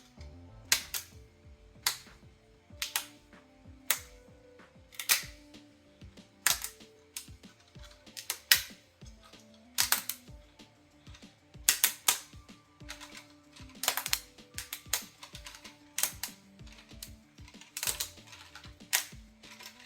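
Sharp cracks and snaps of PLA plastic as a 3D printer raft is pried and peeled away from the printed part. They come irregularly, about one a second, with soft background music underneath.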